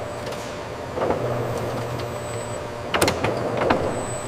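Production-line machinery running with a steady mechanical hum. Sharp clacks cut in about a second in, then three more in quick succession around three seconds in.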